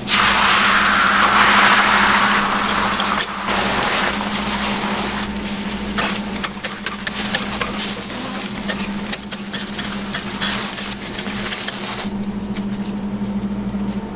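Beaten egg sizzling on a hot flat-top griddle, loudest in the first couple of seconds as it is ladled on, with clicks and scrapes of a metal spatula as the egg is rolled, over a steady low hum.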